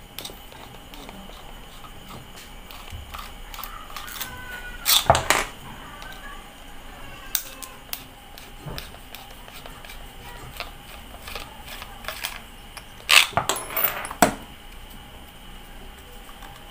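Metal rod prying and scraping inside the plastic motor housing of a disassembled Stanley angle grinder, giving scattered clicks and knocks. The loudest clusters of sharp clicks come about five seconds in and again around thirteen to fourteen seconds in.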